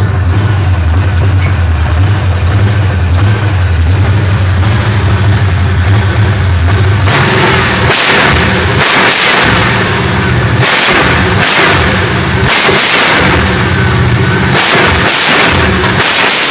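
Small-block Chevy V8 running at a fast idle that the bad carburetor won't let come down, then about seven seconds in revved in repeated short throttle blips, roughly one a second.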